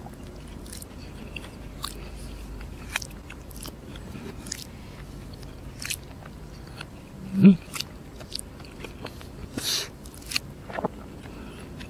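Close-up chewing of crispy fried chicken: irregular crunches and wet mouth clicks, with one louder crunch about halfway through.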